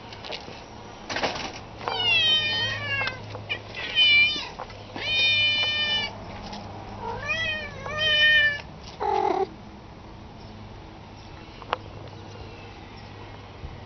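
Domestic cats meowing: about five drawn-out meows in quick succession, some sliding down in pitch and others rising then falling, ending about nine seconds in. A faint steady hum runs underneath.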